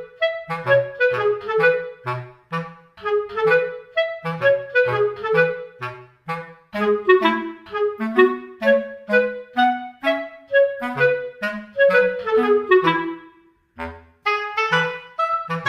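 Background music: a bouncy tune with a pitched lead melody over a steady repeating bass line, breaking off briefly about two seconds before the end and then starting again.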